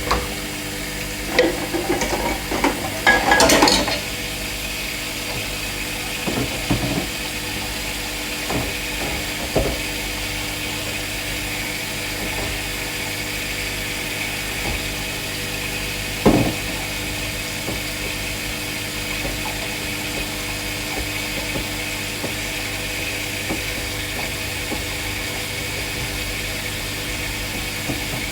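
Dishes and containers clattering and knocking for a few seconds near the start, then a few single knocks, over a steady hum with a high whine.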